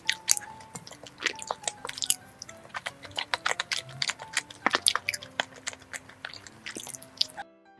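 Close-miked chewing of a soft glutinous rice cake (chapssal-tteok), with wet mouth clicks and smacks many times a second, over soft background music. The sound cuts out briefly near the end.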